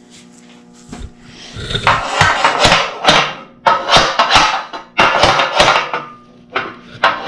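Rough scraping strokes of a hand tool working steel tubing, a few long strokes with short pauses between, over a faint steady machine hum.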